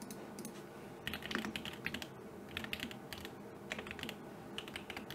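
Typing on a computer keyboard: short bursts of keystrokes with brief pauses between them.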